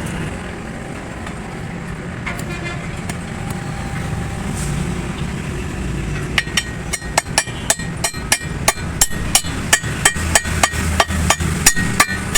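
Rapid hammer blows on the steel of a truck drive shaft's universal joint, about three a second with a metallic ring, starting about six seconds in: driving the cross's bearing cups in or out of the yoke. Under them, a steady low vehicle rumble.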